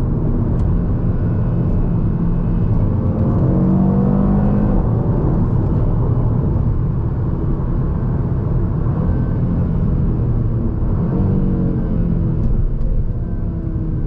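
Audi RS3's 2.5-litre turbocharged five-cylinder heard from inside the cabin, exhaust valves open and secondary catalytic converters deleted with Unitronic midpipes, running while the car slows. The engine note glides in pitch twice, around four seconds in and again around eleven seconds in, consistent with downshifts.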